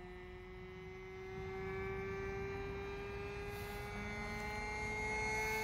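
Handheld electric starter spinning the model airplane's engine: a steady whine that creeps slowly up in pitch and grows louder.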